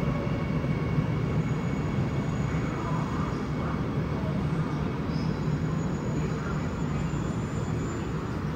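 Seoul Subway Line 9 electric train running into an underground station as it arrives, a steady rumble of wheels and running gear with a faint high whine.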